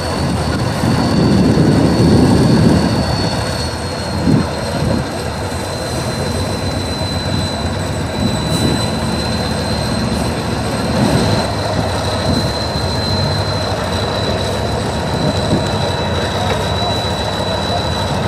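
Tatra 815 trial truck's diesel engine working hard as the truck crawls up a steep sandy bank. It is loudest in the first few seconds, with a steady high whine above the engine throughout.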